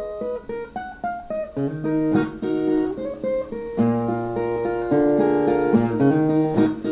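Brazilian viola, a ten-string folk guitar, playing an instrumental passage with no singing. It starts with separate plucked notes, then moves to fuller strummed chords about four seconds in.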